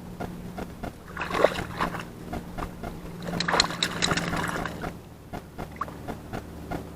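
Water splashing in two surges as a dog swims and paddles in shallow seawater, over a steady low hum.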